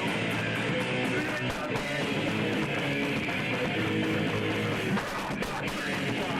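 Rock music led by guitar, played steadily without a break.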